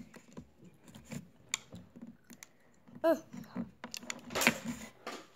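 Jolly Rancher hard candies being unwrapped and handled: scattered small clicks and wrapper crinkles, with a louder rustle about four and a half seconds in.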